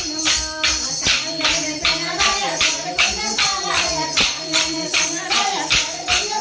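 Kolattam dance sticks, pairs of short wooden sticks struck together in a steady rhythm, about three clacks a second, with group singing.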